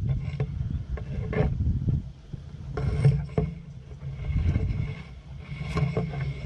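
Wind gusting over the microphone as a rumble that rises and falls, with leaves rustling and brushing against it in short scrapes and clicks.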